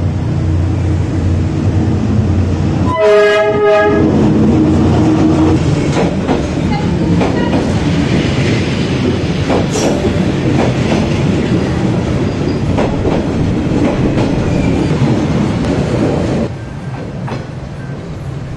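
A train sounds a short horn blast, then runs past with a loud, steady rumble and wheels clattering over the rails. The rumble drops away near the end.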